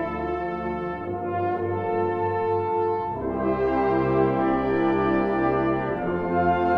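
Concert wind ensemble playing slow, sustained chords. The harmony shifts about three seconds in and again near the end, where the sound grows a little louder.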